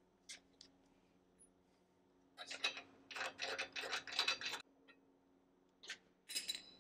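Castle nut and washer being done up on the top pivot of a steel spare wheel carrier. A couple of light metal clicks come first, then about two seconds of rapid clicking in short runs, then a few more clicks near the end.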